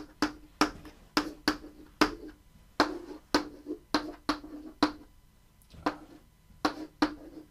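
Chalk on a blackboard as equations are written: a run of sharp, uneven taps and short scrapes, about two or three a second.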